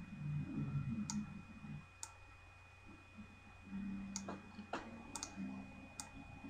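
Computer mouse clicks, about six spaced out singly, as colour sliders and buttons are clicked, over a faint steady electrical hum.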